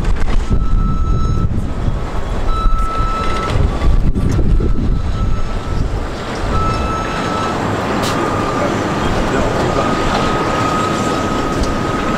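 Vehicle reversing alarm beeping in long tones about every two seconds, then sounding steadily from about eight seconds in, over a loud low rumble.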